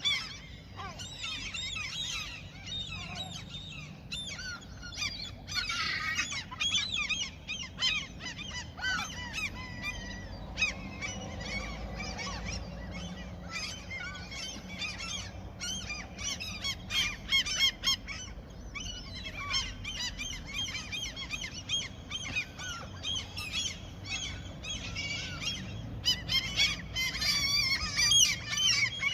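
A flock of gulls calling continuously, many overlapping cries, with busier, louder stretches about six seconds in and near the end.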